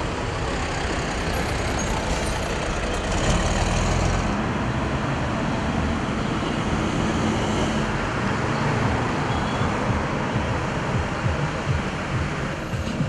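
City buses running and driving past in street traffic: engine rumble over steady road noise.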